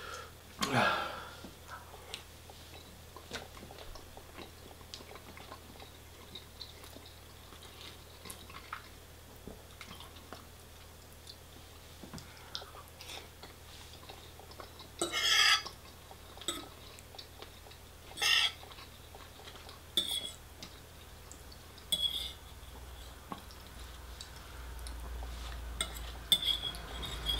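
Cutlery clinking and scraping against dishes during a meal, in short separate strokes with quiet gaps between. The longest and loudest scrape, about a second long, comes about halfway through.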